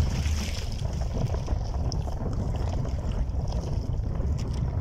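Wind buffeting the microphone, a steady low rumble that rises and falls in small gusts.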